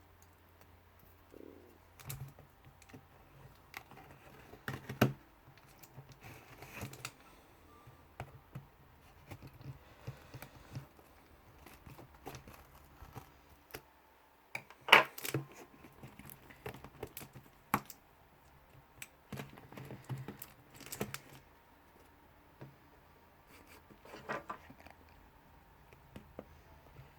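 A taped-up parcel being opened by hand: irregular tearing, crinkling and clicking of tape and packaging, with the sharpest burst about halfway through.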